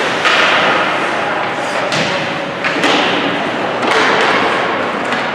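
Youth ice hockey game sounds in an arena: sharp knocks and thuds of puck, sticks and boards, three of them about a second apart in the middle, over a steady wash of rink and crowd noise.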